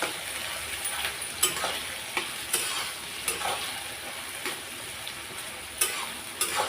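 Chopped onions sizzling in hot oil in a kadhai as they are fried, with a spatula stirring them and its strokes clicking and scraping against the pan every second or so.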